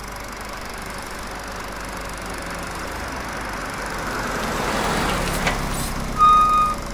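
Road traffic noise: a vehicle passing swells to a peak and fades. Near the end comes a short, steady high beep, the loudest sound in the stretch.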